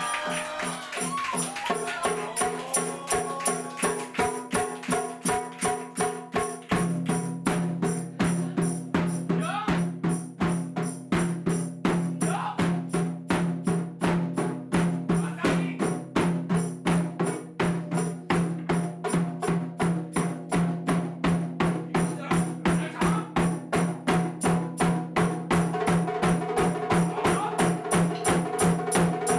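Japanese taiko drums playing a live piece: evenly spaced strokes in a steady rhythm, with a sustained low tone growing stronger about seven seconds in.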